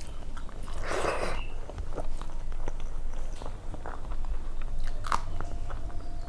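A person chewing and crunching food, with many small mouth clicks and a louder crunch about a second in.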